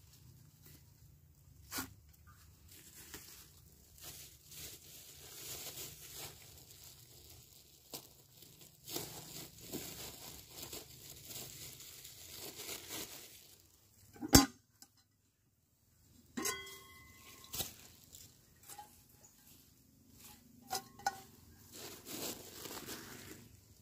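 Plastic bags rustling and crinkling while a metal cooking pot and its lid are handled and set down: one sharp knock about two-thirds of the way through, then a few light metallic clinks with a short ring.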